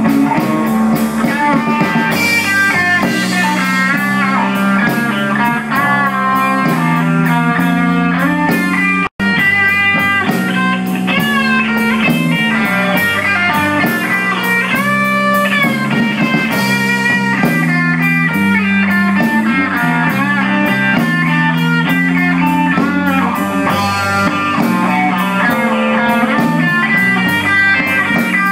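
Slow electric blues guitar solo with bent notes over a steady bass line, with a momentary dropout about nine seconds in.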